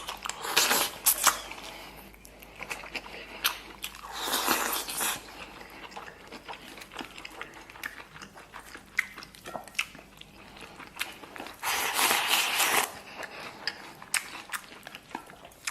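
Close-up eating sounds: a man biting and chewing stir-fried pig intestines with rice, with many small clicks and three louder noisy bursts of about a second each, near the start, about four seconds in and about twelve seconds in.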